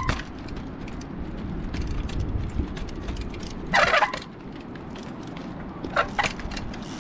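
Trials bike hopping on its rear wheel over rocks and sand, with a low rumble, then one brief, loud screech about four seconds in and a few sharp clicks near the end.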